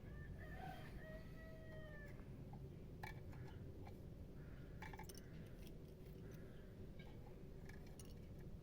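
A rooster crows once, faintly, in one drawn-out call of about two seconds. A few scattered clicks and taps follow.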